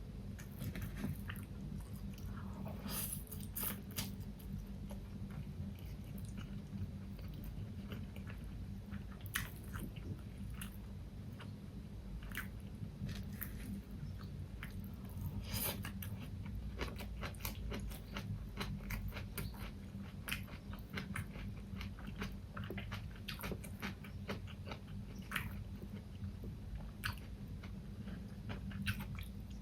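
Close-miked eating: mouth chewing and biting food, with many irregular crisp clicks and crunches, over a steady low hum.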